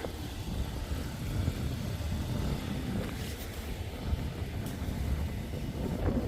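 Wind buffeting the microphone in a low, uneven rumble, with a couple of faint brief scrapes.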